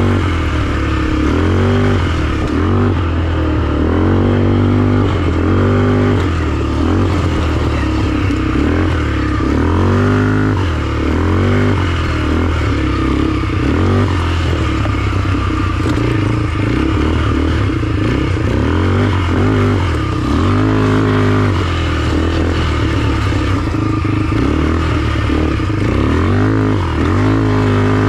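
ATV engines running, their pitch rising and falling again and again as the throttle is opened and closed, over a steady low engine drone.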